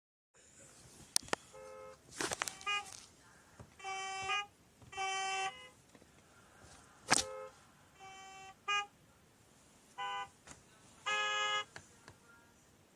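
Car horns honking in a traffic jam: several different horns sound one after another, some in short toots and some in longer blasts, with a few sharp clicks in between.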